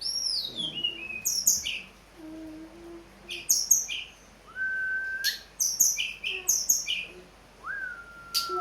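Snowy-browed flycatcher (tledekan gunung) singing: a falling note, then clusters of short, very high chirps and two longer, lower level whistles. This is the song of a male coming into breeding condition.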